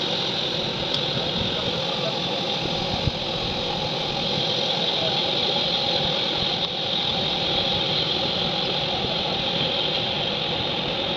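Gas torch burning steadily with an even hiss and rumble.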